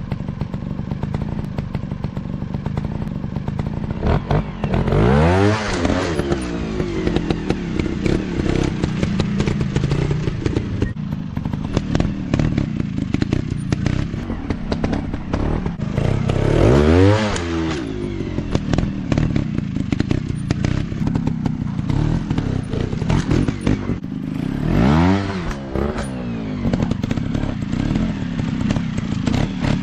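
Dirt-bike engines running, with a bike revving up and dropping back three times, several seconds apart, over a steady engine drone and clatter.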